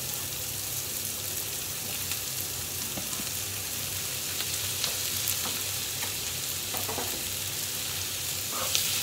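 Ground beef sizzling in hot oil in a frying pan with sautéed onion and bell pepper, a steady hiss. A wooden spatula breaks up and stirs the meat, adding short scraping taps against the pan from about halfway on, more often near the end.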